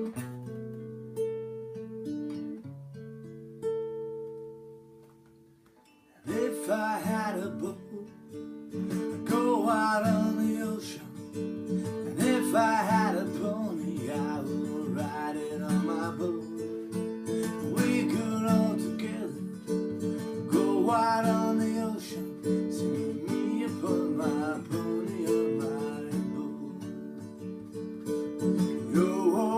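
Acoustic guitar music. A few held chords ring and fade away, then from about six seconds in the guitar strums steadily under a sung melody line.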